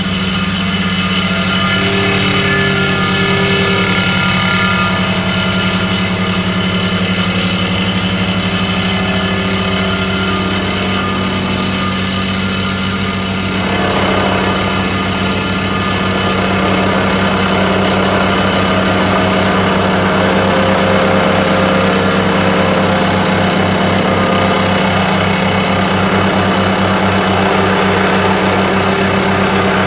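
Excavator-mounted vibratory hammer driving a 6 m Nippon steel sheet pile into the ground: a loud, steady, buzzing drone.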